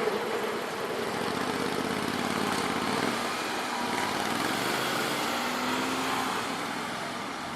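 Motor vehicle running past at a level crossing: a steady engine-and-road noise that eases a little near the end.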